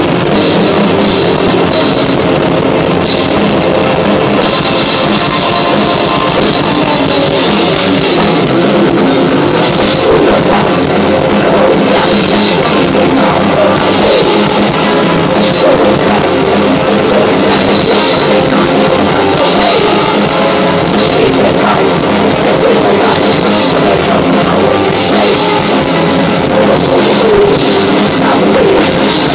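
Thrash metal band playing live: distorted electric guitars over a drum kit, loud and unbroken.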